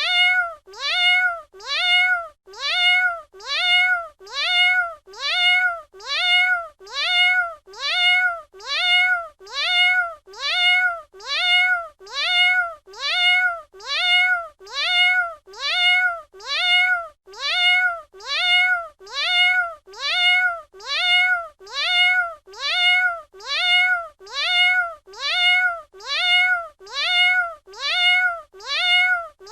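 Domestic cat meowing, the same short meow repeated at even spacing about once a second, each call rising and then falling in pitch.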